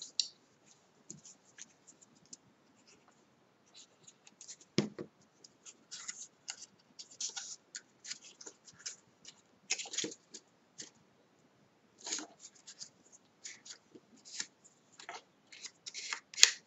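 Hands handling and pressing a small cardstock drawer, the paper rustling and scraping in short, irregular bursts as its glued tabs are pressed into the corners. There is a soft knock about five seconds in and a sharper click near the end.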